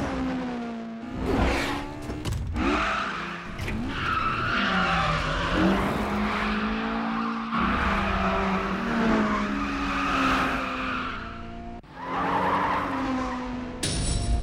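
Racing car engines revving hard, their pitch falling and rising as they brake and accelerate through hairpin corners, with tyres squealing and skidding through the turns.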